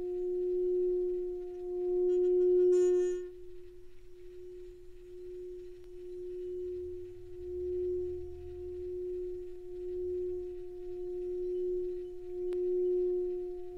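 Tibetan singing bowl sung by circling a wooden mallet around its rim: one steady low tone with a fainter overtone above it, swelling and fading in slow waves. About three seconds in, higher overtones ring out briefly and then drop away.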